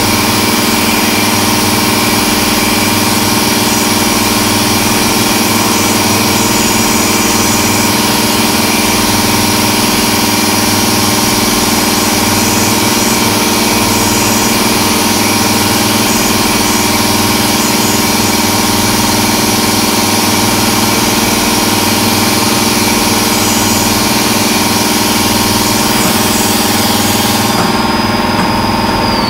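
A Haas VF-3 CNC vertical mill cutting an aluminium block: a loud, steady machining noise with the spindle's whine held at a constant pitch. Near the end the cutting stops and the high whine falls away in pitch as the tool comes up out of the work.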